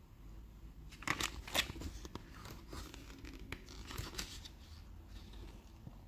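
Glossy paper catalogue pages being handled and turned: a scatter of soft rustles and flicks, loudest about a second in.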